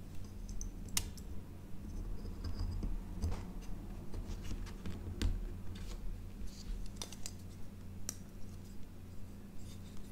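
Hands handling a small soldered circuit board and its battery lead: scattered light clicks and taps, about five sharper ones spread through, with soft rustling between.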